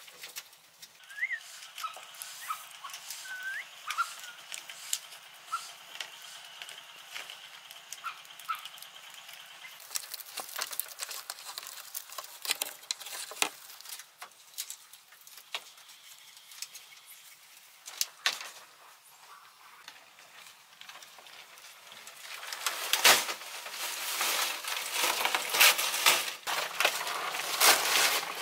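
Scattered light knocks and clicks of bamboo slats being handled and fixed onto a bamboo roof frame, with a few short bird chirps in the first few seconds. Over the last six seconds a dense crackling hiss builds up and becomes the loudest sound.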